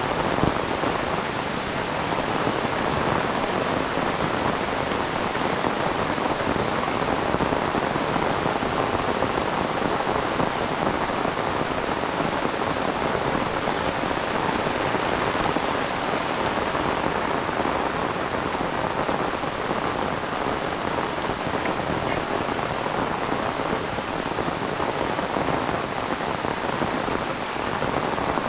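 Heavy rain falling steadily, a dense even hiss of drops hitting the ground and nearby surfaces.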